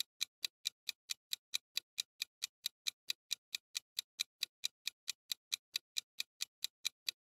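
Countdown-timer clock ticking: sharp, evenly spaced ticks, about four a second.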